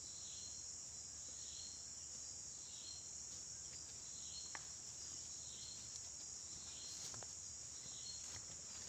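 Steady high-pitched insect drone, with a faint note repeating about once a second and a few faint clicks.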